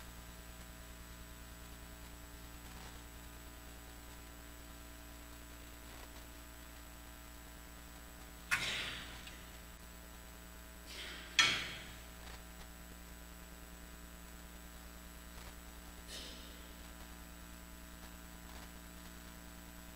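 Steady electrical mains hum, with two sharp clinks about halfway through, each ringing briefly, and a fainter clink later: a chalice and cruets being handled as wine and water are poured into the chalice.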